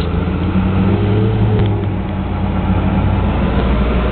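Heavy armoured military truck's diesel engine running with a deep, steady drone as it drives past, the engine pitch rising briefly about a second in.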